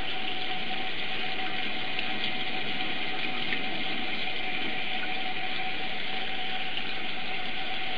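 Tap water running in a steady stream into a sink basin: an even, unbroken rush with a faint steady whine under it.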